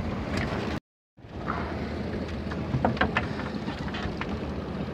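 Small Mercury outboard motor running steadily at trolling speed, with wind on the microphone and a few light knocks; the sound drops out completely for a moment about a second in.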